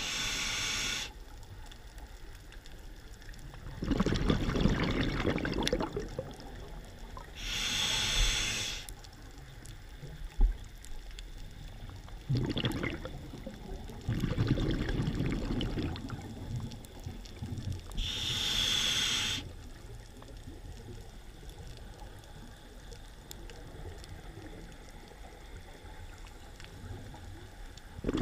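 Scuba diver breathing through a regulator: three short hissing inhalations, each about a second long, with bubbling bursts of exhaled air between them, then a longer pause near the end.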